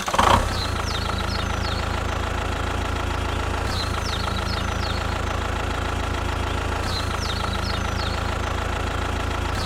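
Engine idling steadily with an even low rumble, overlaid by a few short high chirps that recur in the same pattern about every three seconds.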